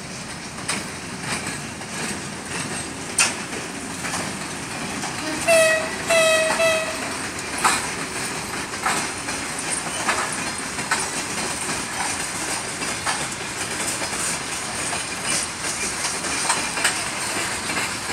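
VL11 electric locomotive hauling a freight train past: a steady running noise of the wagons with wheels clacking over rail joints. About five and a half seconds in, a horn gives a short blast and then a longer one.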